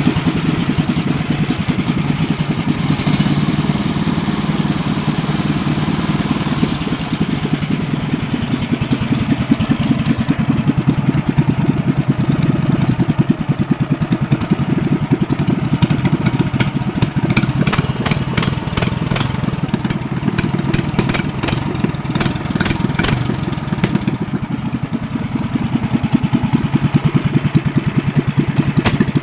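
Small engine running steadily at idle during a service. A scatter of sharp ticks rides over it in the second half.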